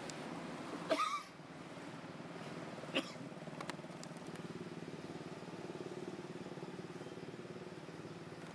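A macaque gives one short, high, wavering squeak about a second in, over a steady low background hum. A sharp click follows about three seconds in.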